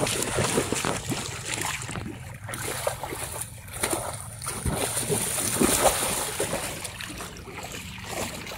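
Water splashing and sloshing as a person wades through shallow floodwater and plunges a bamboo polo fish trap down into it, in irregular splashes.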